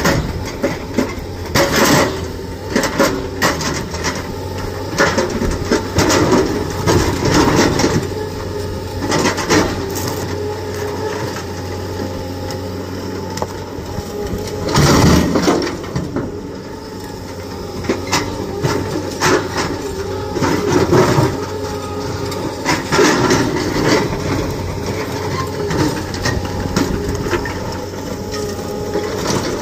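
Diesel excavators running steadily under repeated clanks and crashes of rock. The sounds come from a hydraulic rock breaker hammering boulders and from rock dropped out of an excavator bucket into a steel dump-truck body. The loudest crash comes about halfway through.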